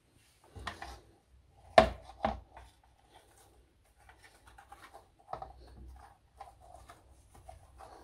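Handling of a plastic detergent drawer and a drinking glass in a ceramic sink: a few soft knocks, then two sharp knocks about two seconds in, the loudest sounds. After that comes soft rustling and scraping as white powder is poured into the drawer.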